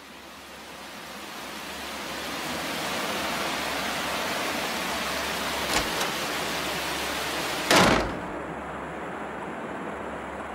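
A steady rushing noise that fades in over the first three seconds, with two short clicks about six seconds in and a brief louder burst near eight seconds.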